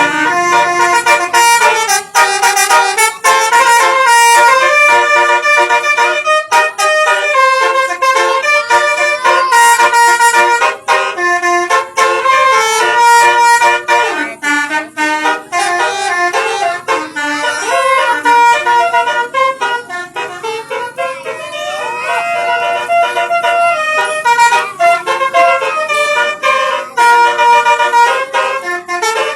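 Telolet basuri multi-tone bus horn playing a melody: a loud run of held notes stepping up and down in pitch, with one sliding note about two-thirds through.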